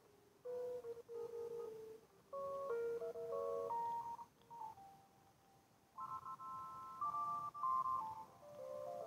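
Electronic chime melody of clear, pure notes, several sounding together and changing in steps, played in short phrases with brief pauses. One pause falls about halfway through, and the melody starts up again about six seconds in.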